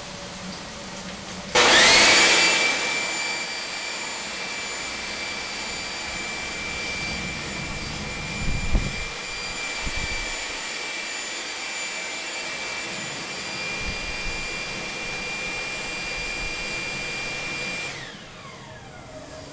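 An air blower feeding a homemade gas turbine burner can starts with a sudden loud rush and a fast-rising whine, then runs with a steady high whine, with a few low thumps about halfway through. Near the end it is switched off and winds down with a falling whine.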